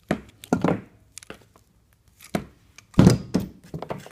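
Compression crimping tool clacking as it closes an F-connector onto RG6 coax and is released, then further knocks of the tool and cable being handled. A series of sharp clacks, the loudest about three seconds in.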